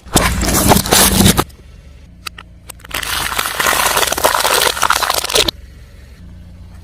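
Car tyre rolling over and crushing crunchy objects: two long stretches of dense crunching and crackling, the first lasting about a second and a half, the second starting about three seconds in and lasting about two and a half seconds.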